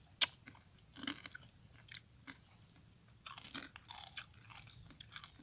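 Crisp crunching of fish-sauce fried macaroni being chewed, in scattered sharp crackles, with a denser run of crackling and clicking about three seconds in as pieces are picked out of a plastic colander.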